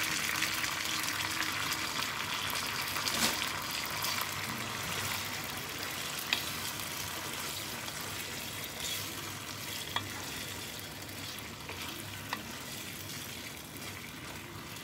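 Chicken pieces in sauce sizzling in a nonstick pan on a gas stove, stirred with a wooden spatula that taps the pan a few times. The sizzle is steady and slowly grows quieter.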